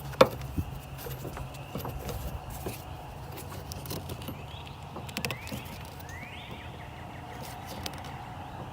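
Hoses being pulled off their fittings in a car's engine bay: a sharp click about a quarter second in, then scattered small clicks, knocks and two short rising scrapes, over a steady low hum.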